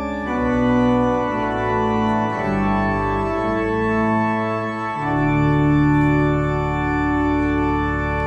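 Church organ playing slow, sustained chords over deep pedal bass notes. A final long chord starts about five seconds in and is held.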